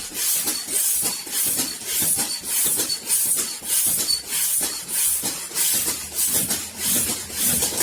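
Air puffed in quick, even bursts through a hydraulic lifter (lash adjuster) from a Lanos 1.5 engine, hissing about twice a second as the puffs blow old oil out of it.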